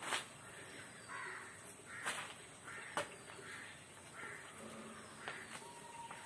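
A crow cawing several times, mixed with a few sharp taps; the loudest taps come right at the start and about three seconds in.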